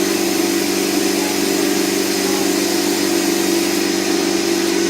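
A small motor running steadily at one unchanging pitch.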